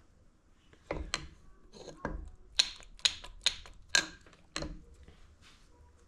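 Metal engine parts being handled on a workbench: about eight sharp clicks and knocks over some four seconds, a few with a dull thud.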